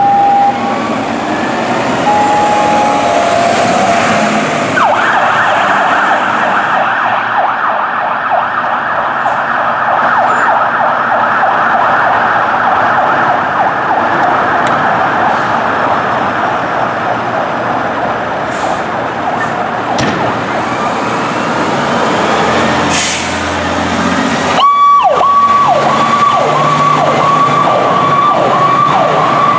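Fire truck sirens on apparatus responding to a call. An electronic siren runs in a fast, pulsing yelp for most of the stretch. After an abrupt cut about 25 s in, a steady high tone sounds over quick, repeated falling yelps.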